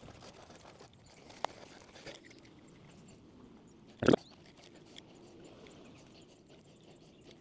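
Faint rustling and crinkling from wire being handled on the grass, with a few light clicks and one brief knock about four seconds in.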